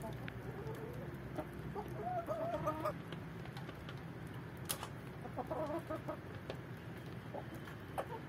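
A flock of chickens clucking, with bursts of clucking about two seconds in and again around five and a half seconds. Scattered sharp clicks and a steady low hum run underneath.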